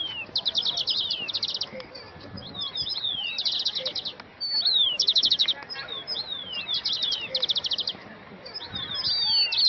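Songbirds singing: phrases of a few quick falling whistles, each followed by a fast rattling trill, repeated over and over.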